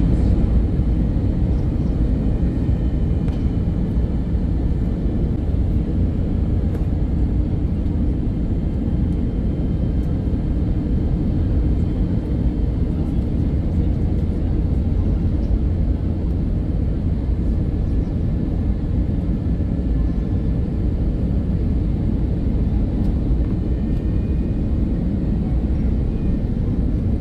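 Steady, deep cabin noise of a jet airliner on final approach, with engines and rushing air heard from inside at the window seat. It stays unchanged throughout.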